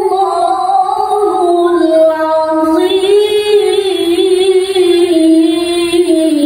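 A man's melodic Quran recitation (tilawah) in a high, strong voice, holding one long unbroken phrase whose pitch bends slowly and wavers in ornaments around the middle.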